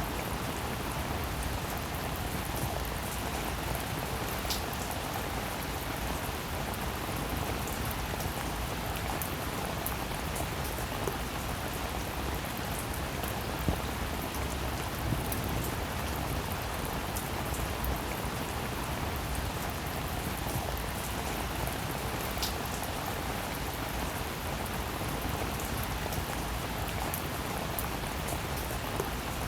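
Steady rainfall: a constant even hiss of rain with fine pattering drops and an occasional sharper single drop tick.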